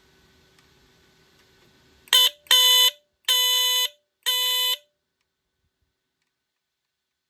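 BRK 769AC DC smoke detector's alarm sounding four loud, buzzy blasts about two seconds in, the first short and the others about half a second each, each ending with a slight upward flick in pitch.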